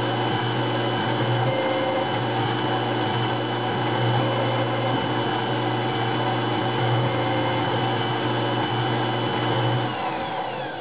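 Taig CNC mill running a program in Delrin: a steady spindle-motor whine and hum with the axis drives moving the cutter. Near the end the spindle winds down, its pitch falling as it coasts to a stop.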